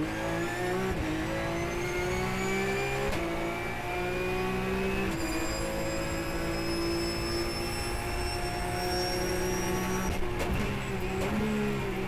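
Porsche Carrera Cup race car's flat-six engine heard from inside the cockpit, revving out hard and upshifting three times, each shift a short break in the rising pitch. It then holds high revs at speed until, about ten seconds in, it drops as the car brakes and downshifts twice with short rises in revs.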